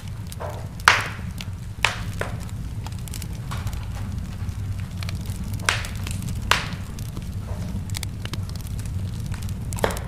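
Wood fire crackling in a fireplace: a steady low rumble of burning with a handful of sharp pops, the loudest about a second in.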